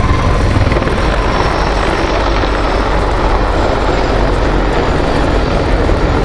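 Mi-26T2 heavy-lift helicopter flying past close overhead. Its eight-blade main rotor and twin turboshaft engines make a loud, steady noise, heaviest in the low end.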